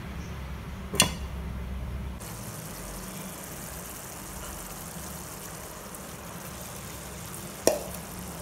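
Vegetable kurma simmering in a stainless steel pan, with a steady faint hiss of bubbling. A sharp metallic clink comes about a second in, and a duller knock near the end as boiled potatoes go into the pan.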